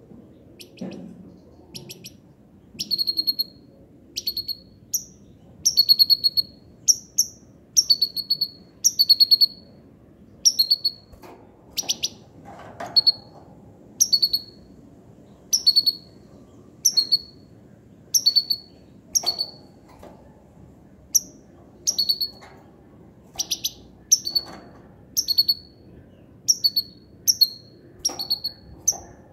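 Caged hybrid finch singing goldfinch-style song: short phrases repeated about once a second, each a quick run of clicky notes ending in a falling whistle.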